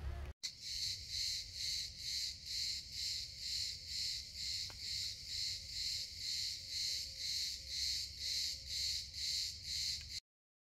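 Chirping insects in a steady pulsing chorus, about two pulses a second. The sound starts and stops abruptly.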